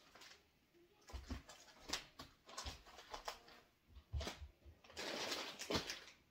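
Plastic grocery packaging and bags rustling and crinkling as items are handled, with a few light thuds of packages set down on a countertop; the crinkling is densest near the end.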